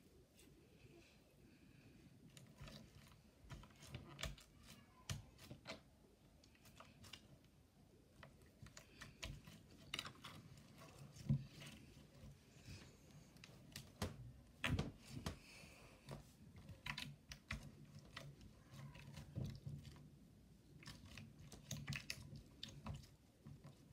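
Clear slime being squeezed, pressed and stretched by hand, giving many small irregular clicks and crackly pops.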